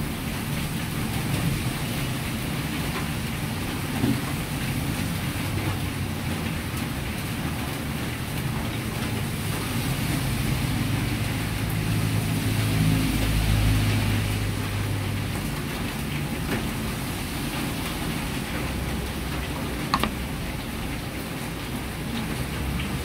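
Gas wok burner running with a steady roar while sauce cooks in the wok, with a hiss like rain. A low rumble swells and fades around the middle, and there are a couple of sharp clicks.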